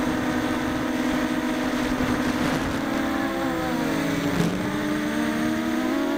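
Racing quadcopter's four Emax 2204 2300kv brushless motors spinning 6-inch props, whining in flight as heard from on board, the pitch shifting with throttle. About four seconds in the pitch drops briefly and climbs back, with a short click at the low point.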